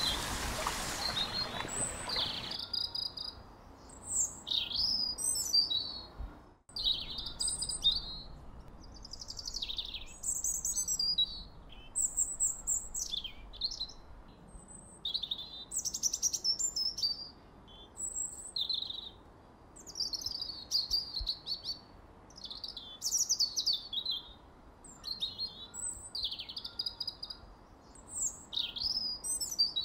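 A songbird singing, a run of short high chirps and quick sweeping phrases repeated every second or so. For the first two seconds it sits under a louder outdoor rush of noise, which then cuts off and leaves the birdsong alone.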